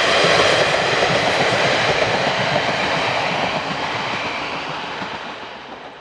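Two-car KiHa 47-series diesel railcar train running past on the rails, its rumble fading steadily as it pulls away.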